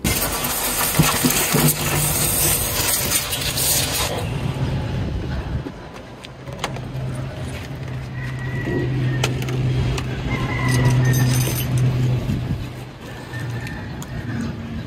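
A cleaning machine runs with a steady low motor hum. A loud hissing rush over it for the first four seconds drops away, and a few light metallic clicks follow.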